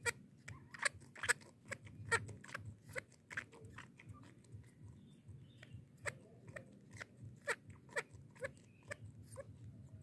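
Baby macaque sucking milk from a plastic feeding bottle: a run of short wet clicks and smacks, roughly two to three a second, thinning out briefly around the middle.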